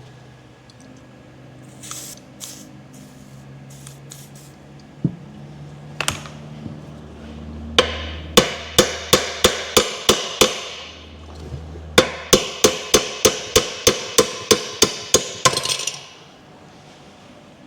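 Hammer striking metal in two runs of quick, evenly spaced blows, about three a second, each with a short metallic ring; a few single knocks come before them.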